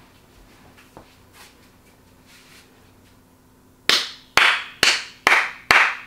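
A person clapping hands in a steady beat: five sharp claps about two a second, starting about four seconds in, after faint room noise.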